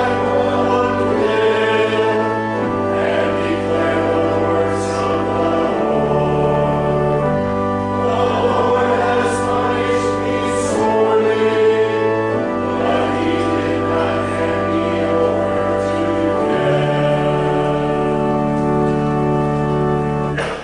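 A hymn sung by a group of voices over held accompanying chords that change every second or two. It cuts off abruptly at the end.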